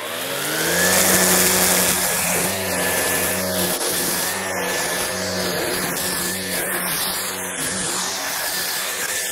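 Cordless battery brush cutter with a rear-mounted motor spinning up in the first second, then running steadily while its cutting head whips through dense grass and weeds. The pitch sags slightly under load a couple of times. It had just been shut off by its overload sensor under heavy load and is now restarted.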